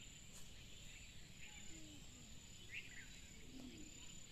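Faint outdoor ambience: a steady high-pitched insect drone with a few short bird chirps over a low rumble.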